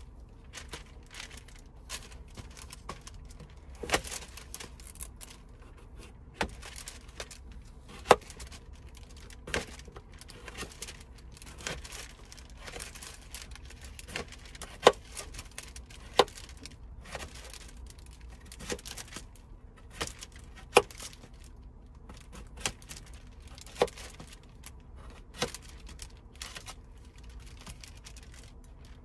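Knife cutting food on a cutting board: irregular sharp knocks every second or two over soft rustling and scraping.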